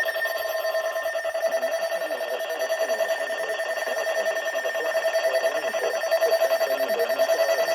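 Electronic alert tone: a steady tone with a fast flutter, sounding as an emergency-alert attention signal ahead of a broadcast flash-flood warning.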